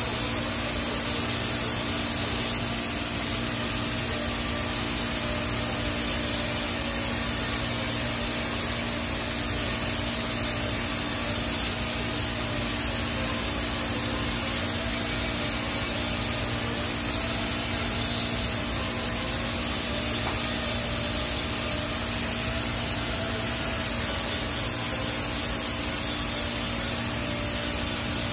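TIG welding arc running without a break on the root pass of a 24-inch stainless steel pipe. It gives an even hiss with a steady low hum underneath.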